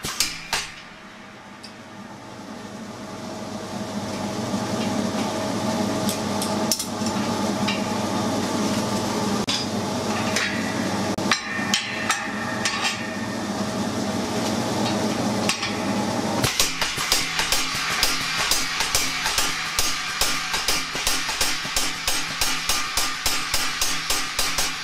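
Home-built pneumatic power hammer striking hot steel between its forging dies. A few blows at the start and scattered knocks through the middle, then from about two-thirds in a long run of rapid, evenly spaced blows.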